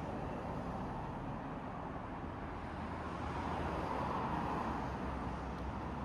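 City street ambience: a steady wash of traffic noise that swells a little around the middle.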